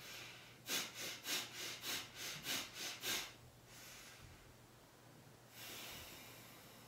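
A man breathing forcefully through his nose in quick succession, about ten short sniffs and puffs in under three seconds (five rapid in-out chest breaths). These are followed by a faint, slow nasal inhale into the belly and, from about two-thirds in, a long steady nasal exhale.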